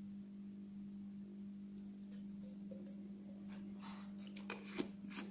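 Faint steady low hum, with a few light clicks and plastic handling noises near the end as a plastic bottle and its screw cap are handled.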